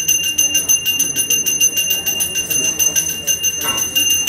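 Ritual hand bell rung rapidly and steadily, about eight strokes a second, its bright ringing tone sustained throughout.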